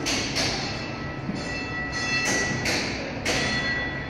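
Irregular scuffing footsteps on a hard floor as someone walks. A steady high-pitched whine runs behind them.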